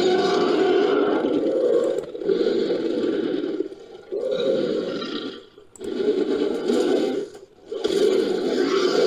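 A designed dinosaur-monster sound effect for a large carcharodontosaurid-type predator, built by layering dinosaur roar recordings. It is a run of about five roars and growls with short breaks between them.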